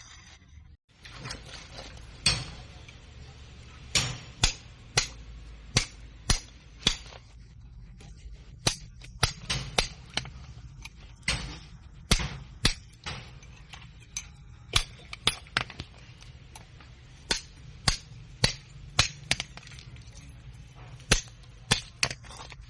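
Hammer blows on the steel casing of a refrigerator compressor being broken open for scrap: sharp metallic strikes at an uneven pace, one to two a second and sometimes in quick pairs, over a faint low hum.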